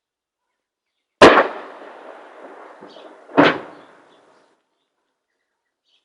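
Two artillery blasts about two seconds apart, the first the louder, followed by a rolling echo that dies away.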